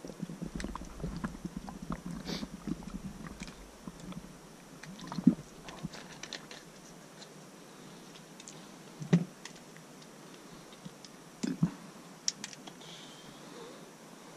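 Handling noise: irregular small clicks, knocks and rustling of gear being handled close to the microphone, with a few sharper, louder knocks about five, nine and eleven and a half seconds in.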